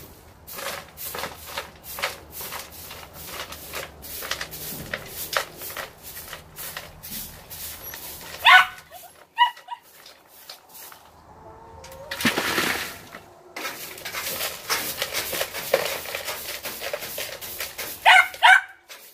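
Hand brush sweeping dirt and wood-chip mulch into a plastic dustpan, a quick run of short scratchy strokes with a longer, louder scrape about twelve seconds in. Short animal calls break in twice, about eight and eighteen seconds in.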